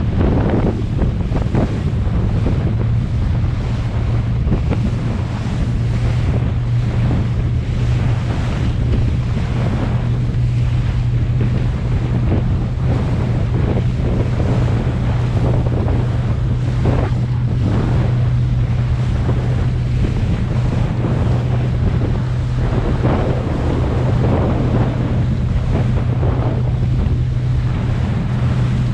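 Fishing boat under way: its engine runs with a steady low drone while water splashes against the hull in irregular surges and wind buffets the microphone.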